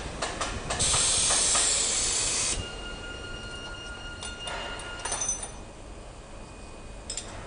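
A loud hiss of escaping air lasting about two seconds, after a few light metal clicks, followed by a faint steady high whine and a second, shorter hiss about five seconds in.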